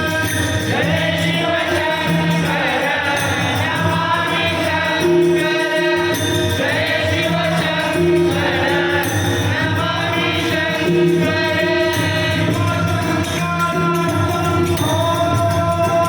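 Marathi devotional bhajan gajar: voices singing a chorus refrain together with jingling hand-percussion, over steady held tones and a regular beat.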